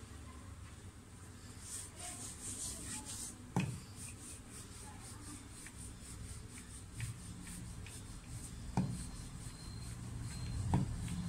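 Wooden rolling pin rolling out paratha dough on a floured board: soft rubbing strokes, with a few light knocks of the pin.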